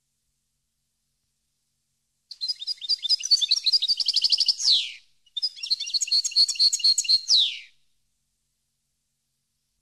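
European goldfinch singing: two quick twittering song phrases of about two and a half seconds each, with a short pause between them, each ending in a falling note.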